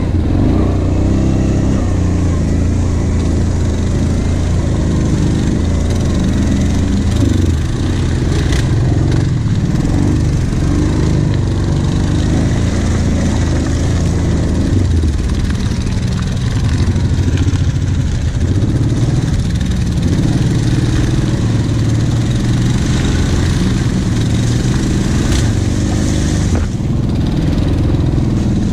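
Quad bike (ATV) engine running on a muddy off-road trail, the revs rising and falling with the throttle.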